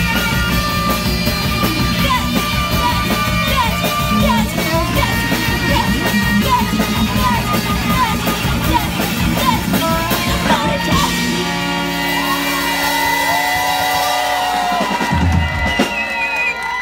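Live post-punk band with saxophone, electric guitar, bass, drum kit and shouted vocals, echoing in a club hall. About two-thirds of the way through the drumming stops and held notes ring on, the low end dropping away near the end as the song closes.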